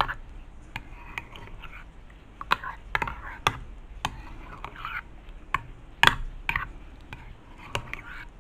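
A metal fork stirring a thick yogurt-and-egg mixture in a ceramic bowl, clinking and scraping against the bowl in irregular strokes, loudest about six seconds in.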